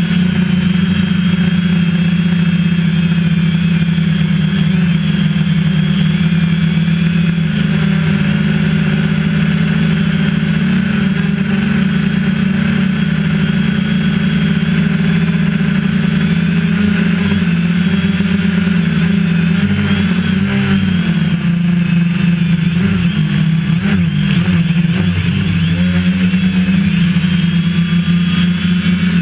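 DJI Phantom 1.1.1 quadcopter's motors and propellers buzzing steadily in flight, heard up close from the GoPro mounted on it. The pitch wavers for a few seconds about twenty seconds in, then settles again.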